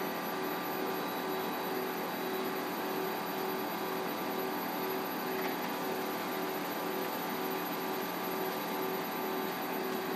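Paper web-feed machine running steadily, drawing paper off a roll over rollers: an even mechanical whir with a constant hum.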